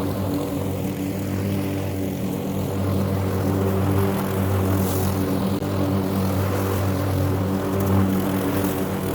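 Lawn mower engine running steadily while cutting grass, with a constant pitch.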